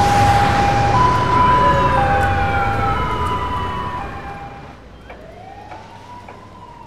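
Ambulance two-tone siren alternating between a high and a low note about once a second, over road traffic noise. It fades about four to five seconds in, leaving a fainter siren wail that rises and then falls.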